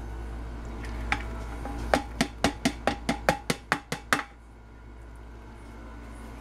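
A plastic colander knocked against stainless steel to shake out the last pieces of rind: a single knock, then a quick run of about ten taps, roughly five a second, each with a short metallic ring.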